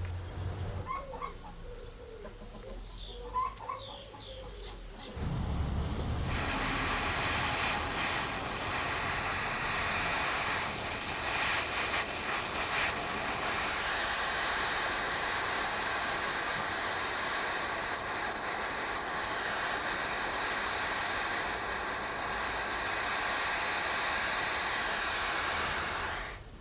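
A few faint high chirps, then a loud, steady hiss that starts about six seconds in and cuts off suddenly near the end.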